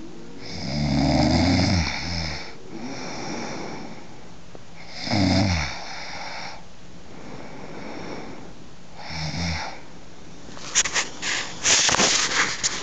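A woman snoring in her sleep: three loud, rasping snores, each falling in pitch, with softer breaths between them. About eleven seconds in, a burst of rapid clicks and rustling takes over.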